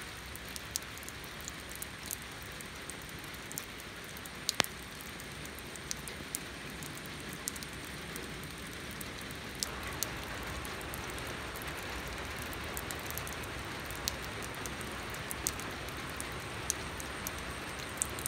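Steady rain falling into shallow standing water on pavement: a continuous hiss dotted with sharp individual drop splashes, growing a little heavier about ten seconds in.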